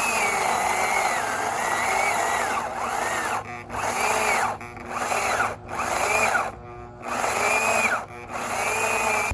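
Hyper Tough 9-amp 14-inch corded electric chainsaw running and cutting, its motor whine sagging in pitch as it loads up in the cut and picking back up, with several brief drops where the saw eases off.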